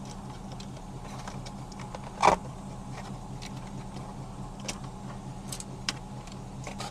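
Car-audio parts and wiring being handled: a short sharp knock about two seconds in and a few light clicks later, over a steady low hum.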